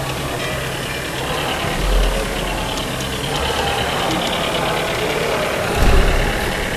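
Large-scale model diesel locomotive running past close by on its track, pulling a coach, over a steady hall din; two low thumps, about two seconds in and about six seconds in.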